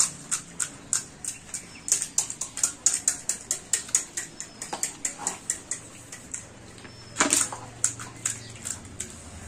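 Crisp panipuri shells cracking and being chewed, a quick irregular run of sharp crunches with a louder crunch about seven seconds in.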